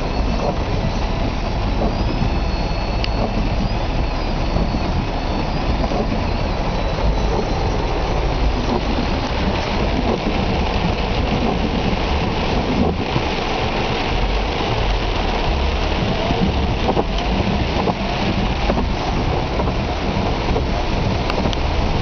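Heavy rain falling on a car's roof and windows, heard from inside the cabin: a steady hiss with a low rumble underneath.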